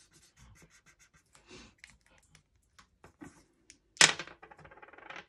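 Faint scratching of a felt-tip marker on paper, then about four seconds in a sudden loud clatter of two dice thrown onto the tabletop, rattling for about a second.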